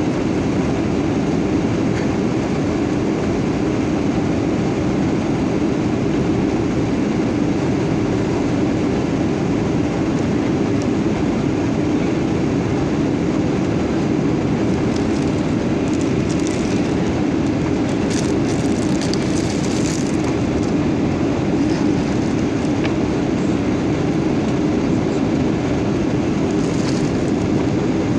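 Steady cabin noise inside a Boeing 737-900 in flight: the even rumble and rush of its CFM56 turbofan engines and airflow, with a few faint brief rustles over it.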